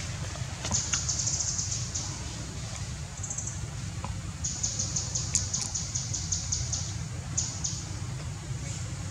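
Outdoor ambience: several bursts of rapid, high-pitched pulsed chirping, the longest lasting about two and a half seconds, over a steady low rumble.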